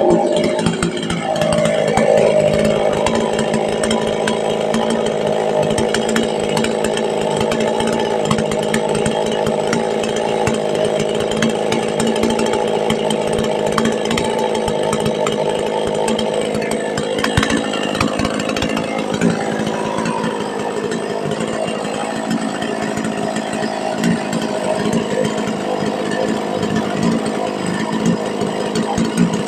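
STIHL two-stroke chainsaw engine running continuously, its pitch falling over the first couple of seconds, then holding steady with some rises and falls in pitch around the middle.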